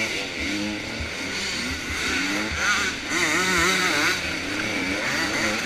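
Motocross dirt bike engines revving, their pitch rising and falling over and over, more than one engine at once.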